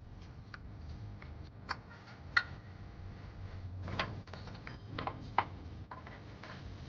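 Scattered sharp clicks and light clinks of hand tools working on a car engine's belt and pulleys, irregular and loudest twice, over a low steady hum.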